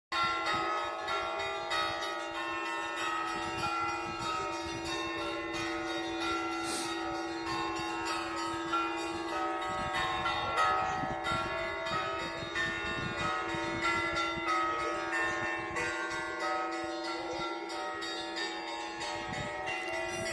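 Russian Orthodox church bells ringing (zvon): several bells struck in quick, overlapping patterns, over one low note that rings on throughout.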